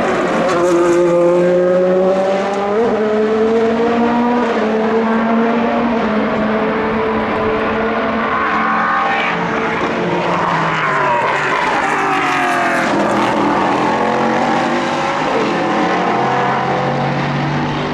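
Race car engines at speed: an LMP2 prototype's Gibson V8 passes with its pitch gently falling over the first few seconds. Around the middle, another engine revs up through the gears with rising pitch.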